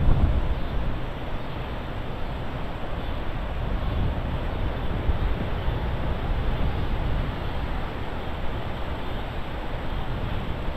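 Wind blowing across the microphone: a low rumble that rises and falls, with a hiss over it.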